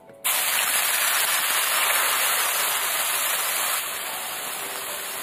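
Puffed-rice (muri) batter sizzling loudly as it hits smoking-hot refined oil in a flat pan (chatu). The sizzle starts suddenly about a quarter second in and eases a little just before the four-second mark.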